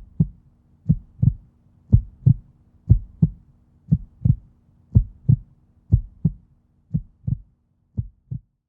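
Heartbeat sound effect: paired low thumps, lub-dub, about once a second over a faint steady hum, growing fainter toward the end.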